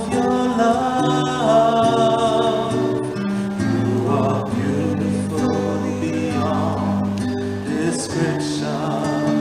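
Choir singing a slow worship song with guitar accompaniment, the voices holding long notes.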